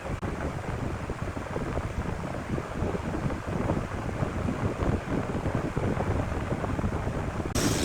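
Irregular low rumbling noise, like wind buffeting the microphone. Near the end a much louder machine noise starts suddenly.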